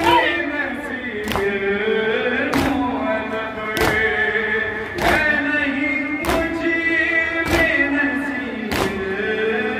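Male voices chanting a noha, a Shia lament, together, with a loud matam chest-beat falling about every second and a quarter, eight strikes in steady time with the chant.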